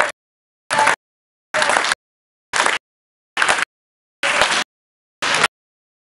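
Gym noise from a basketball game, with players on a wooden court and people in the hall, chopped into about seven short bursts by repeated gaps of dead silence: the recording's audio keeps dropping out.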